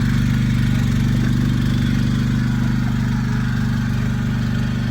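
Power weeder's small engine running steadily at an even, unchanging speed.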